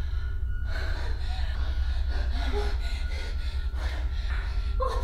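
A woman gasping and breathing hard in short, ragged breaths after being bitten on the neck, over a steady low hum.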